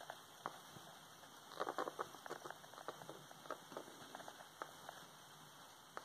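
Pet rat sniffing and nibbling at a hand held close to it: faint, quick little ticks and puffs in irregular bursts, densest about a second and a half in.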